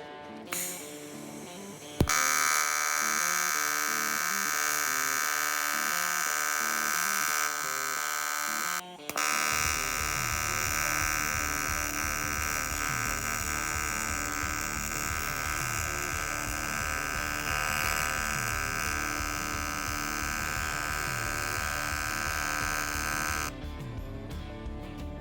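A steady, high electric buzz from metalworking on a stainless steel plate starts about two seconds in, stops for a moment near nine seconds, resumes and ends shortly before the end. Background music with a steady beat plays underneath.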